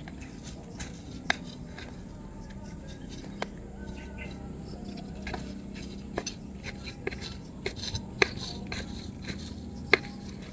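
Scattered light clicks and taps, a dozen or so spread irregularly with a few sharper ones, as a hand works a small metal tool against a plant pot and its dry potting media, over a faint steady hum.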